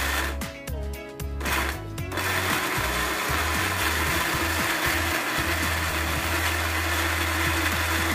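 Electric countertop blender running, pureeing onion and garlic into a paste, with a brief drop in its sound during the first two seconds before it runs steadily again.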